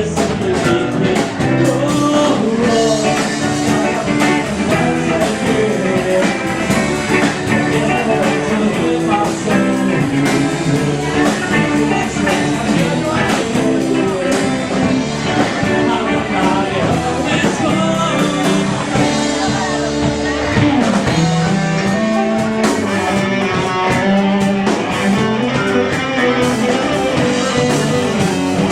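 Live rock band playing an instrumental passage, guitar to the fore over bass and drums.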